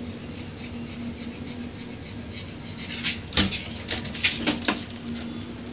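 A pug pawing at a door: after about three seconds of near quiet comes a quick run of six or so sharp knocks and rattles against the door over roughly two seconds, the loudest in the middle of the run.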